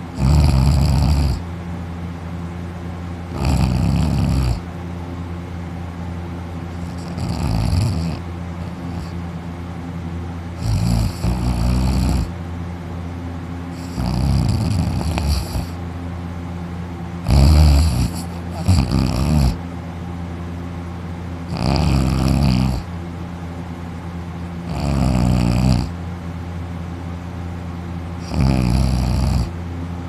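A man snoring loudly in deep sleep, lying on his back with his mouth open, his throat and uvula vibrating. Each snore lasts about a second and comes every three to four seconds, with two in quick succession around the middle.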